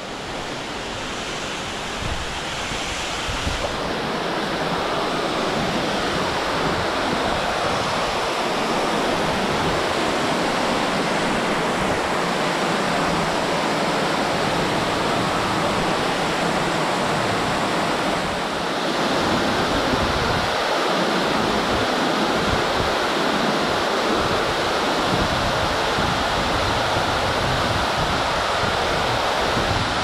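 Waterfall pouring into a rock plunge pool: a steady rush of falling water that grows louder over the first several seconds, then holds steady.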